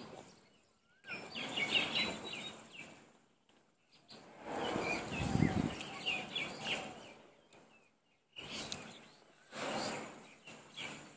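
Eating by hand: rice mixed with the fingers on a metal plate and chewed, heard as three bursts of rustling noise with short pauses between them. Small birds chirp in the background.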